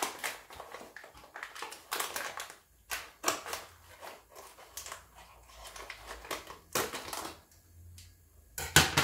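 Scissors cutting open the paper inner bag of a cocoa powder carton: irregular bursts of paper and cardboard crinkling, with the loudest rustle just before the end.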